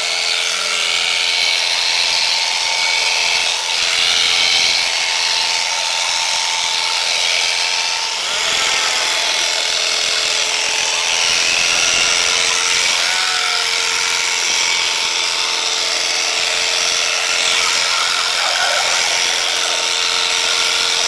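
Electric sheep-shearing handpiece running with a steady hum as its cutter works through an Icelandic sheep's fleece.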